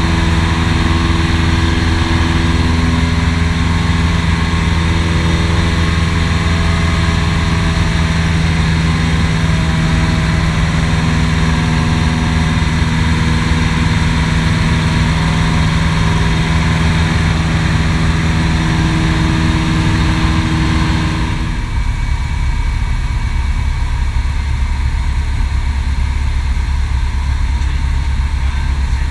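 Piper PA-18 Super Cub seaplane's engine and propeller running steadily, heard from inside the cockpit. About three quarters of the way through the note drops abruptly to a lower, slightly quieter sound as power is pulled back for the glassy-water landing approach.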